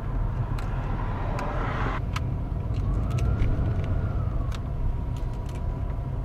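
Steady low road rumble of a car driving, heard from inside the cabin, with a hiss that cuts off suddenly about two seconds in.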